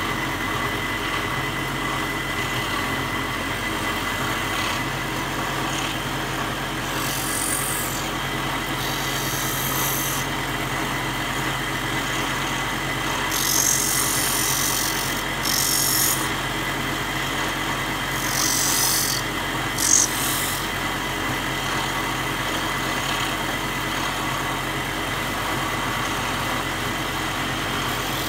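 Electric lapidary grinding machine running steadily with a hum and a thin whine while an opal is held against its wet grinding wheel, with several short bursts of grinding hiss as the stone is pressed on.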